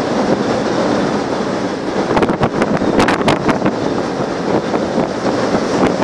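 Strong wind buffeting the microphone in rough weather at sea, a loud steady rush with a cluster of sharp crackles in the middle, over the noise of a heavy sea running.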